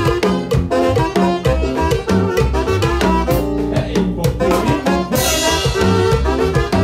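Live Latin dance music from a small band: a drum kit played with sticks, snare hits and cymbals, under a keyboard melody. A cymbal crash rings out about five seconds in.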